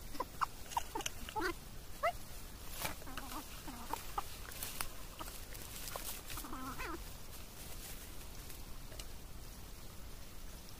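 Bird calls: a quick run of short, pitched calls in the first two seconds, a few scattered calls after, and one longer wavering call about six and a half seconds in, with a few faint clicks between.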